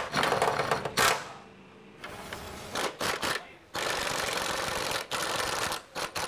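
Socket ratchet wrench on an extension clicking in quick runs as a 17 mm front subframe bolt is loosened, with a couple of sharper clacks near the start and a steady run of about two seconds in the second half.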